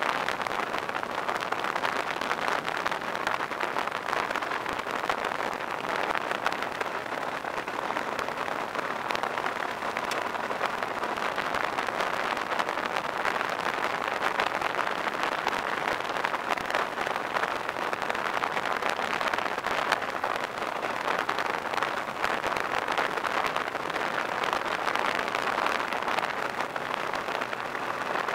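Steady rushing wind and road noise picked up by a camera mounted on a moving ATV, an even hiss with no distinct engine note.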